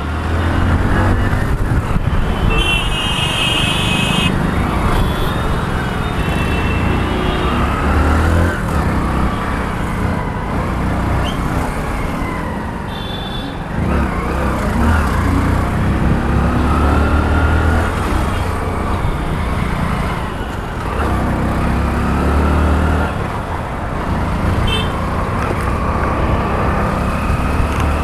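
Road traffic heard while riding a motorcycle: a heavy low rumble of wind and engine with passing vehicles, and vehicle horns tooting briefly about three seconds in and again near the middle.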